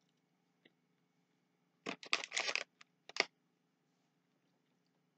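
Plastic candy bag crinkling as it is handled to take out another Skittle: a cluster of crackles about two seconds in, and a shorter crackle about a second later.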